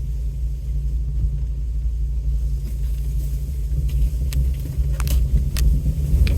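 Off-road vehicle rumbling low and steady as it drives slowly over a rough dirt road, with a few sharp knocks and creaks from about four seconds in.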